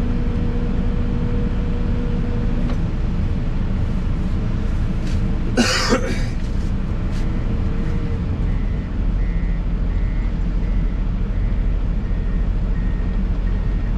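Excavator diesel engine running steadily, heard from inside the cab. About halfway through there is a short, sharp double burst of noise.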